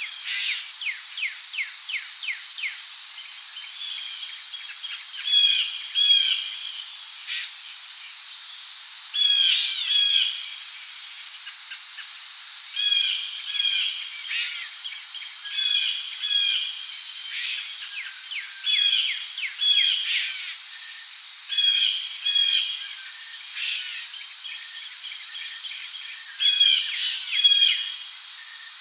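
Rainforest ambience: insects keep up a steady high-pitched drone while birds call in short repeated phrases every second or two, with a quick trill of falling notes near the start.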